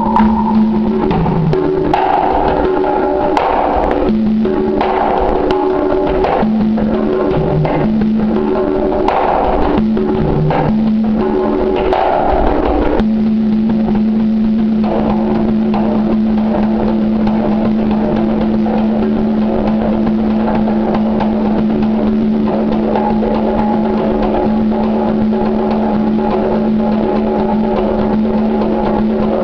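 Conga drums played by hand in a steady rhythm of strokes over pitched backing music, which moves between low notes for the first half and then holds one low note.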